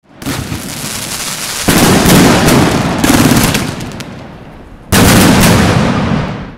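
Fireworks going off in quick succession: a dense run of cracks and bangs that swells sharply about two seconds in and again about five seconds in, then cuts off abruptly.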